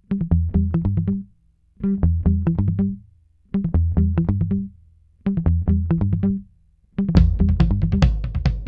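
Background music: a plucked-string riff played in four short stop-start phrases with brief pauses between them, then the full band with drums comes in about seven seconds in.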